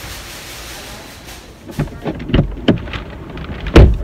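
Steady background noise, then from about halfway a run of low thumps and knocks, the loudest near the end: people and things bumping about as they settle into a car.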